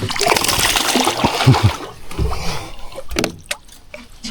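Water splashing and sloshing with a few knocks and clatter, busiest in the first three seconds, then quieter with a few clicks.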